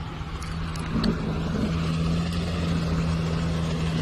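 A motor running at a steady pitch: a low, even hum.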